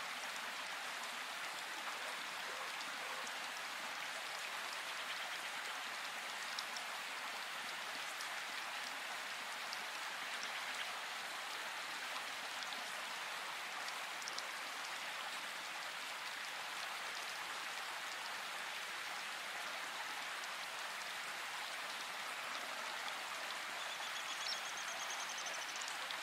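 Steady rain: an even hiss of falling rain with no let-up.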